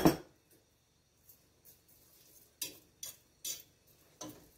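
A sharp clack as a glass measuring cup is set down on the counter, then four light, short clinks and scrapes of a metal fork against a stainless steel pot as wet quinoa and lentils are stirred.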